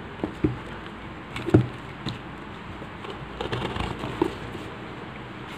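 Cardboard parcel being handled and turned over on a table: a few dull knocks and bumps, the loudest about a second and a half in, with a run of smaller knocks near the middle.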